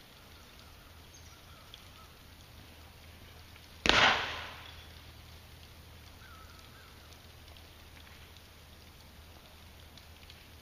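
A heavy rock thrown onto rocky ground lands with one sharp crack about four seconds in, ringing briefly as it dies away.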